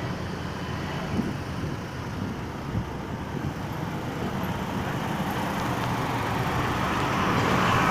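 Steady roadside traffic noise, with engine rumble and tyre hiss, swelling louder near the end as a vehicle draws near. No horn sounds.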